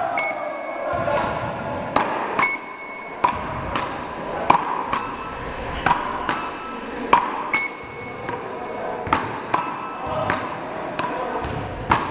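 Wooden rakettes paddles hitting a small rubber ball back and forth in a steady rally: sharp cracks about one every two-thirds of a second, echoing in a large hall. A short high electronic beep from the rally's measuring machine follows some of the hits.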